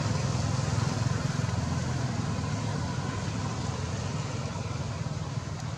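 A motor vehicle engine running nearby: a steady low rumble that slowly fades.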